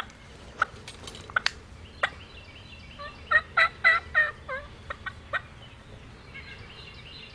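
Wild turkey gobbling: a fast, rattling run of notes about three seconds in. A few short, sharp calls come before it, and fainter calls follow.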